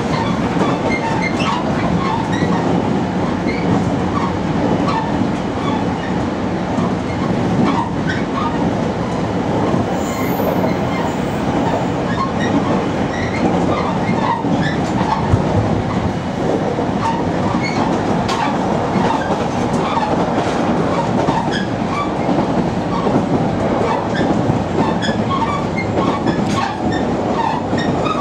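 Interior running noise of a JR Kyushu 815 series electric multiple unit at speed, heard from just behind the driver's cab: a steady rumble of wheels on rail with scattered clicks and rattles.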